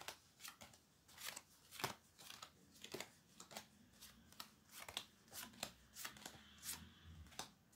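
Tarot cards being shuffled by hand: a faint, irregular string of short card-on-card clicks, two or three a second.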